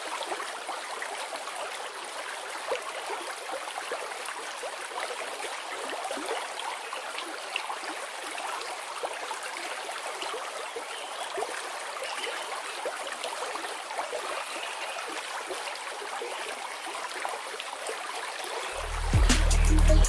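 Steady rush of the swollen, muddy Bagmati River in flood, pouring fast past stone ghat steps. Background music with a strong low beat comes in about a second before the end.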